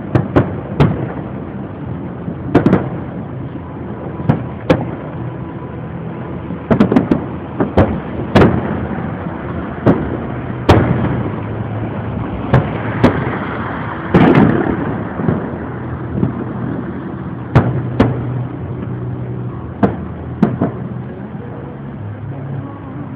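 Fireworks display: a long run of sharp booms from shells bursting overhead, some coming in quick pairs, with a longer crackling burst about fourteen seconds in, over a steady low rumble.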